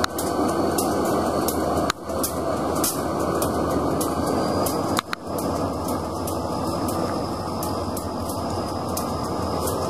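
Canadian Pacific EMD GP38 diesel switcher rolling slowly past with an SD40-2 coupled behind, its engine giving a steady rumble. Faint sharp ticks come several times a second, and the sound drops out briefly twice, about two and five seconds in.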